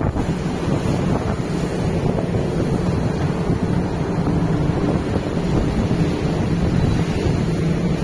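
Wind buffeting the microphone over the rush of churning sea water along a cargo ship's hull, with a steady low hum underneath.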